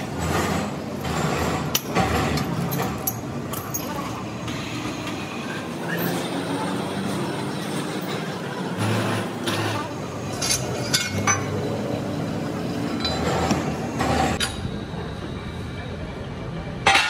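Metal clinks and knocks of a wrench and steel clamps on a large lathe faceplate while a cast-iron wheel blank is bolted down, over steady workshop background noise.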